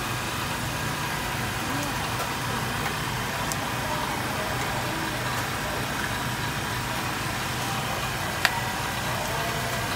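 Steady mechanical hum with a constant hiss, and a single sharp click about eight and a half seconds in.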